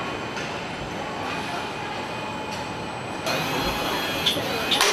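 Car assembly plant machinery with an overhead conveyor carrying car bodies: a steady mechanical rumble and hiss. About three seconds in the noise turns brighter and louder, and a couple of sharp metallic clacks follow near the end.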